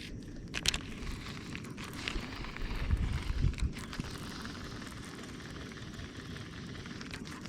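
Wind rumbling and buffeting on the microphone, with a few light clicks or knocks scattered through it.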